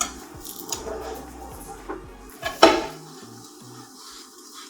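Spatula clinking and scraping against a frying pan as a large zucchini pancake is turned over, with one loud knock about two and a half seconds in.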